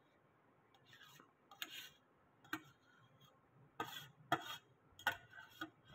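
Faint scrapes and taps of a steel spoon against a steel bowl as grated paneer is pushed out of it, about seven short separate strokes.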